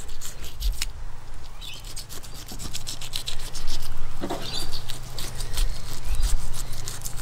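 Filleting knife scraping through a whole barramundi along its back, a rapid run of short dry rasping ticks as the blade works through skin and scales and along the bones.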